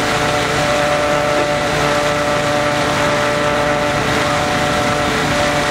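Engine-driven machine running steadily at a constant speed, with several steady tones over a continuous hum. It appears to be the blower that feeds the large snow hose being carried across the lawn.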